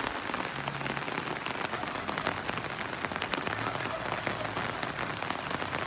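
Steady heavy rain falling, with many individual drops tapping sharply on surfaces.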